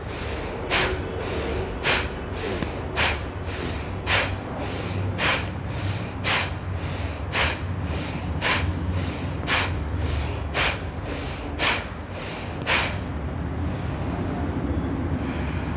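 A woman doing the horse-breath breathing exercise: sharp, forceful exhalations about once a second, each followed by a quicker intake of breath, about a dozen rounds that stop about 13 seconds in. A steady low hum runs underneath.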